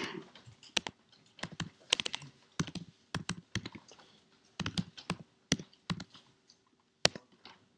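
Typing on a computer keyboard: irregular keystroke clicks in short quick runs with pauses between.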